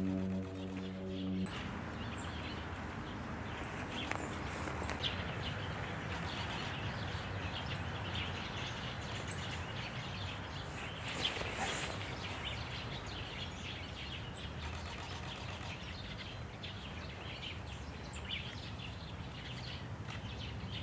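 Background music cuts off about a second and a half in, leaving steady woodland background noise with scattered short, high bird calls.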